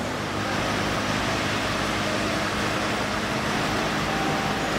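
Diesel engine of a MAN concrete mixer truck running steadily as the truck drives slowly along a road.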